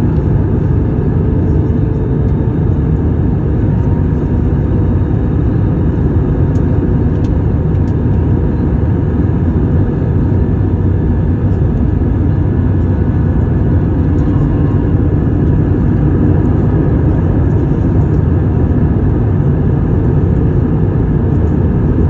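Steady cabin noise inside an Airbus A321 on descent: the even hum of the jet engines and rushing airflow, with a faint steady tone over it.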